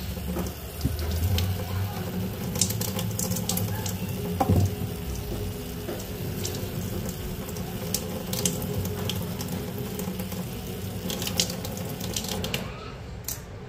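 Kitchen tap running into a sink while vegetables are rinsed, with scattered knocks and clatters of produce and utensils. The water shuts off near the end.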